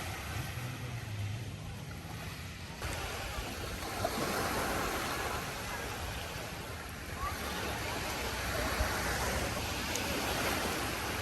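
Steady rush of sea surf and wind, growing brighter and fuller about three seconds in, with faint voices in the background.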